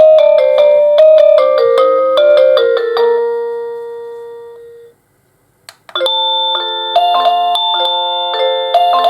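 AVANTEK D-3B wireless doorbell receiver playing its electronic chime tunes. A quick run of bright notes ends on a held note that fades out about five seconds in. After a short silence and a click, the next tune starts.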